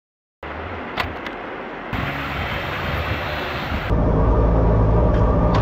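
Jet boat engine running under way on a river, with water rushing past the hull. It starts after a brief silence and changes abruptly about two and four seconds in, where short clips are spliced together, getting louder and deeper at the last change.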